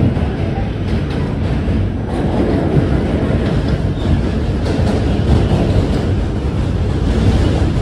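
R46 subway train running over a steel bridge, heard from inside the car: a loud, steady rumble of wheels and car body with rail clatter.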